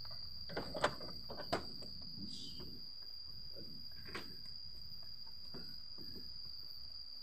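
Plastic clicks and knocks as a car's turn-signal lamp housing is handled and pressed into place on the front corner: a few sharp ones in the first two seconds, the loudest about a second and a second and a half in, and a fainter one about four seconds in. A steady high-pitched tone sounds throughout in the background.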